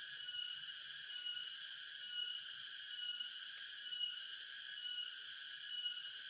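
Steady high-pitched insect chorus, pulsing about once a second.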